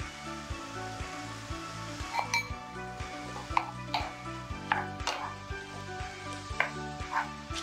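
Rice and kimchi stir-frying in a sizzling pan, turned with a wooden spatula that scrapes or knocks against the pan about once a second from about two seconds in.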